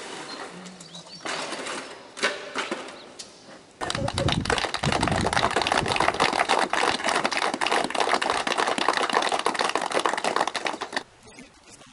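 Metal shovels scraping and scooping wet concrete mix, then a crowd applauding: a dense crackle of clapping for about seven seconds that cuts off suddenly near the end.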